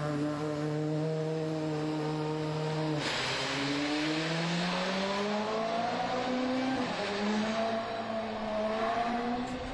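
Mercedes-AMG DTM race car's V8 engine holding steady revs, then accelerating hard about three seconds in, the revs climbing and dropping back through several quick upshifts.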